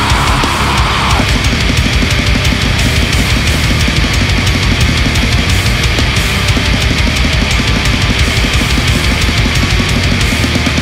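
Blackened death metal: distorted guitars and bass over dense, rapid drumming, loud and unbroken.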